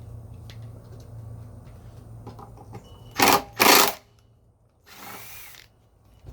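Power drill/driver spinning out a generator bolt in two short, loud bursts, then a quieter third burst about a second later.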